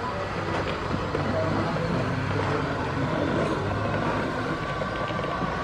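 Radio-controlled model semi-truck driving slowly, a steady running sound with a low hum, over a faint murmur of voices.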